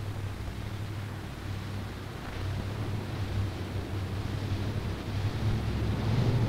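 Off-road 4x4's engine running with a low, steady drone over a faint hiss, growing louder toward the end as the vehicle comes closer.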